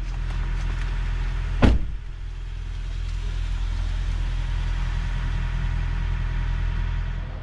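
Steady low rumble of a vehicle engine idling, with one sharp knock about a second and a half in.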